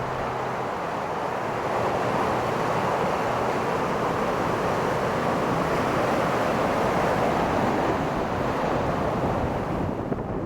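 Ocean surf breaking and washing up a beach: a steady rush that swells about two seconds in and eases near the end, with wind buffeting the microphone.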